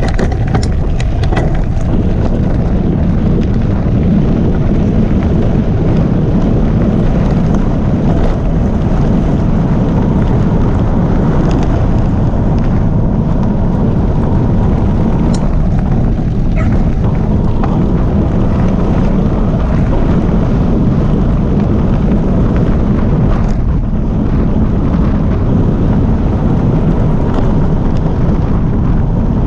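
Steady rumble of a Calibre Bossnut mountain bike's knobbly tyres rolling over a gravel track, mixed with wind buffeting the microphone, with a few short clicks and rattles along the way.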